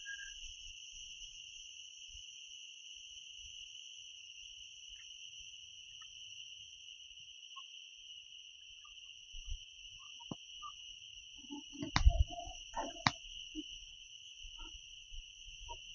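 A forest insect calling with a steady, unbroken high-pitched drone. A few knocks and thumps about three quarters of the way through.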